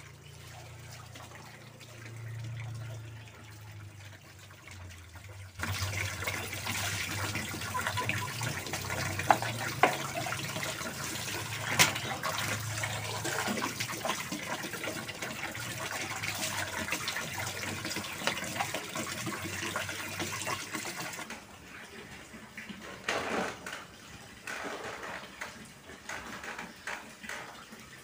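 Tap water running into a large basin while bowls are rinsed under it, with a few sharp knocks of dishes against each other. The rush of water gets louder about five seconds in and falls away about twenty-one seconds in, and a low hum sits underneath for most of it.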